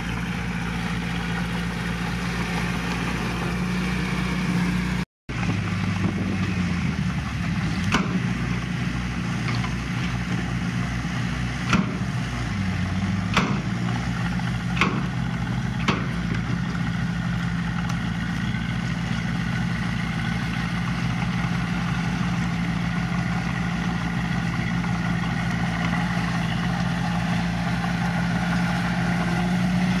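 Heavy-equipment diesel engine running steadily, its pitch dipping a few times, with about half a dozen sharp knocks in the first half. The sound cuts out for an instant about five seconds in.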